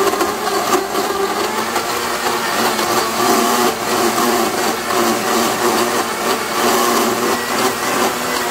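Blendtec Total Blender running steadily, pureeing broccoli, water and cheddar into a smooth soup.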